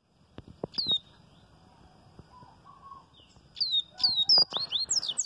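Caged coleiro-baiano (yellow-bellied seedeater) singing its 'viviti' song: one sharp, high, downslurred whistled note just before a second in, then a rapid run of high downslurred and rising whistled notes near the end. A few soft knocks come about half a second in.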